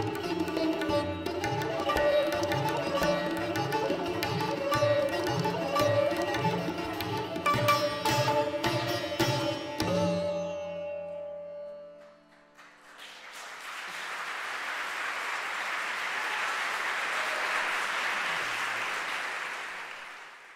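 Sitar, bansuri and tabla playing the closing bars of a piece in Raga Madhuvanti, ending together on a final stroke about ten seconds in, with the sitar ringing on briefly. Audience applause then rises and fades out near the end.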